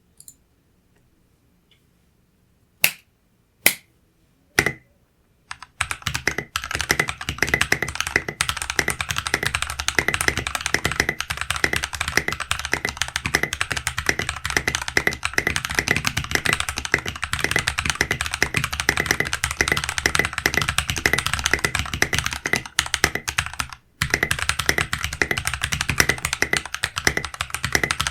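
Mechanical keyboard with lubed Glorious Holy Panda tactile switches and Tai-hao Sakura keycaps being typed on. Three single keystrokes come first, then from about six seconds in fast continuous typing, with one brief pause near the end.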